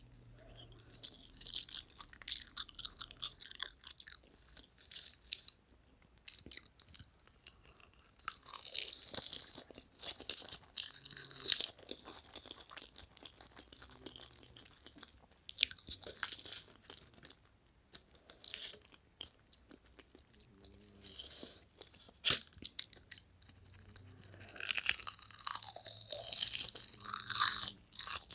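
Close-miked chewing of food with crisp crunching, beginning with a bite into a piece of sausage. The sound comes in spells of a few seconds with quieter pauses between them, and is loudest near the end.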